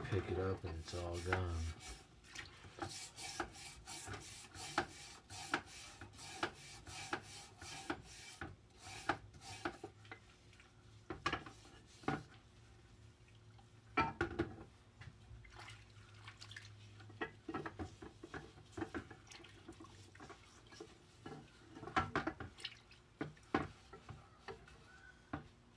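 A brass wire brush scrubbing a greasy engine part in a bucket of degreaser and water: quick scraping strokes, busiest in the first several seconds, with water sloshing and dripping and a few louder knocks of metal against the bucket. The part is still greasy and grimy.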